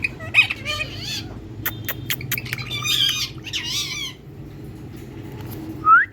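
Pet parrot chattering in quick chirps, squawks and sharp clicks. It goes quieter for the last couple of seconds, then gives a short rising squeak near the end.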